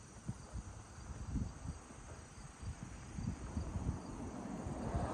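Crickets trilling steadily in the background, under low, irregular thumps and rumble.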